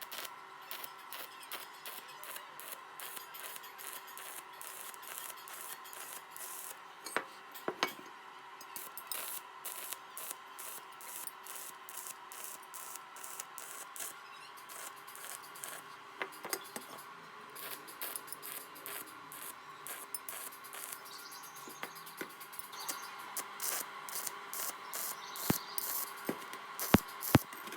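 Stick welding arc on stainless steel pipe crackling irregularly. A few sharper clicks come near the end.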